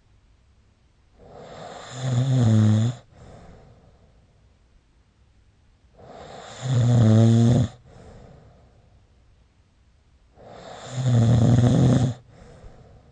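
A sleeping person snoring: three loud snores about four and a half seconds apart. Each is a low, buzzing rattle that builds up over about a second and then cuts off abruptly, and each is followed by a brief, fainter breath sound.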